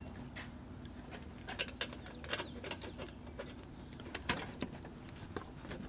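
Pliers gripping a screw driven into the core of a plastic push rivet and working it out: a run of faint irregular clicks and scrapes of metal on plastic, a few of them sharper, about one and a half, two and a half and four seconds in.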